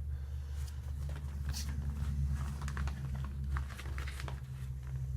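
A full paper vacuum bag being handled at a Hoover PowerMax upright vacuum: scattered crinkling and rustling of the paper, with light clicks.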